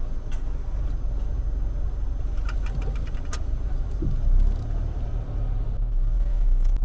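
Car running, a steady low rumble heard from inside the cabin, with a few light clicks and rattles about two and a half to three and a half seconds in.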